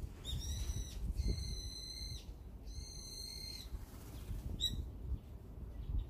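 Brown-eared bulbuls calling: three drawn-out, shrill whistled calls one after another, then a short call about three-quarters of the way through.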